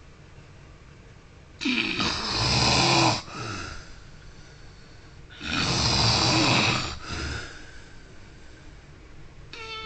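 A man snoring: two long, loud snores about four seconds apart, each followed by a shorter, softer breath.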